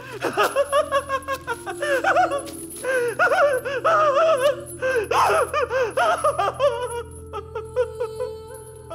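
A man laughing wildly in rapid, repeated gasping bursts, easing off near the end, over a low, sustained music score.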